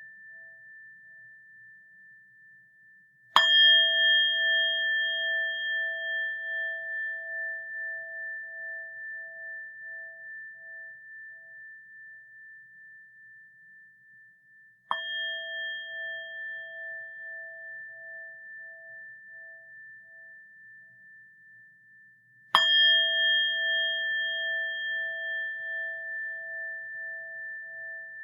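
Buddhist rin (orin) bowl bell struck three times, about 3 s in, midway and about 22 s in, the middle strike softer. Each strike rings on for many seconds in a clear metallic tone that wavers slowly as it fades.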